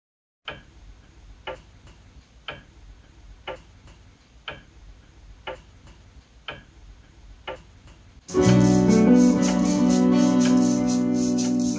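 A clock ticking steadily about once a second, eight ticks in all. About eight seconds in, loud instrumental music with sustained keyboard-like chords comes in.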